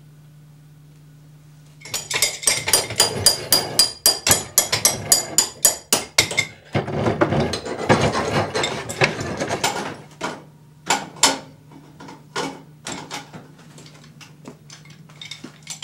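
Metal banging on a hot water heater under repair: a quick run of ringing hammer strikes, about four or five a second, then a stretch of clattering and scattered single clanks, over a faint low hum.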